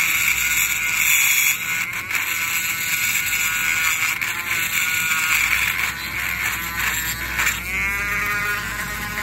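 Handheld rotary tool with a small cutting bit running at high speed, routing into cedar wood with a steady high-pitched whine. It is cutting a lip around the edge of a cavity, and its pitch shifts near the end.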